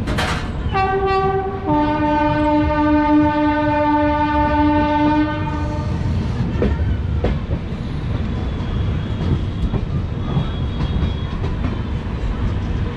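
The train's electric locomotive horn sounds twice in a row: a brief higher note, then a lower note held for about four seconds. Underneath runs the steady rumble and clickety-clack of the coaches on the rails, with a sharp clack at the very start.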